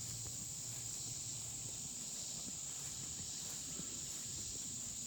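Steady chorus of insects in the woods, a constant high-pitched buzz that holds level throughout.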